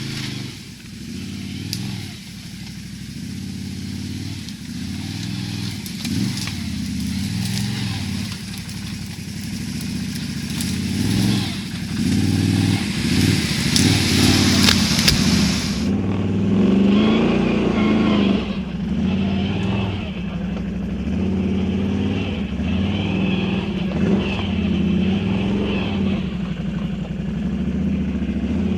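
Can-Am Outlander XMR 1000 ATV's Rotax 1000 V-twin running through a dual slip-on exhaust while being ridden, the revs rising and falling again and again with the throttle.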